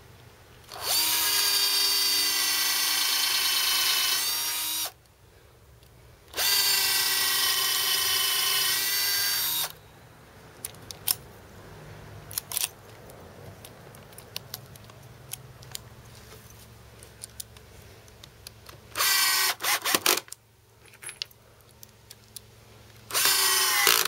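Power drill in a drill guide stand running at steady speed twice, about four and three seconds long, boring countersunk pilot holes for number 10 screws through a pine ledge board. After that come light clicks and taps as the bit is swapped by hand. Near the end there are two shorter stop-start runs of the drill.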